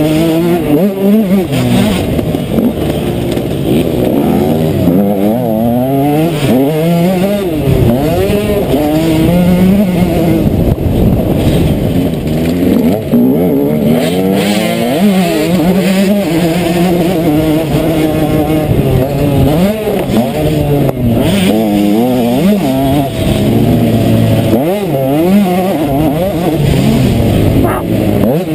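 KTM 125 SX two-stroke single-cylinder motocross bike engine heard from the rider's helmet, revving hard and dropping back again and again as the throttle is worked and gears change round the track.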